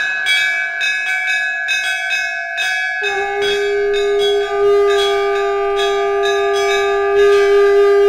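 Many brass temple bells struck in quick succession, ringing together in a dense clangour. About three seconds in a loud, steady, deeper horn-like tone comes in and holds under the bells.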